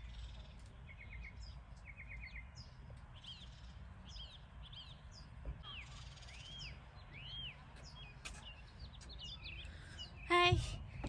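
Several small birds chirping and calling: quick repeated trilled notes at first, then arched whistled notes, over a faint low background rumble. A brief snatch of music comes in near the end.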